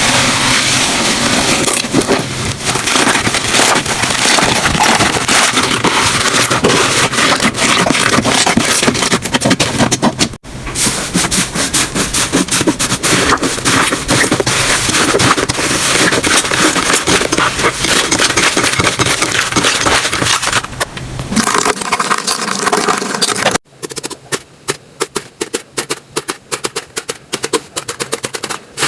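Slime being squeezed and pressed by hand, giving a dense run of crackling and popping. Near the end the crackling thins to separate clicks.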